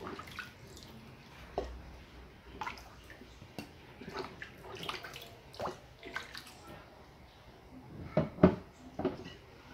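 Water splashing and sloshing in a basin as a hand washes vegetables in it and lifts them out, in irregular splashes and drips, loudest about eight seconds in.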